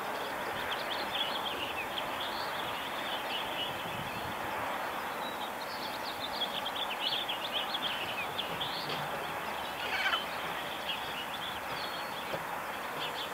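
Many songbirds chirping at dawn, short high calls overlapping and busiest in the middle, over a steady background hiss.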